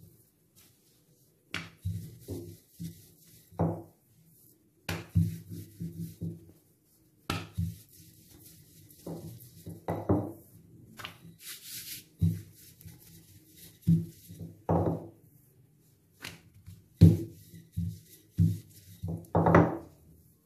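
Wooden chapati rolling pin rolling out parotta dough on a floured counter: irregular thuds and rolling rumbles as the pin is pushed back and forth and knocks the surface.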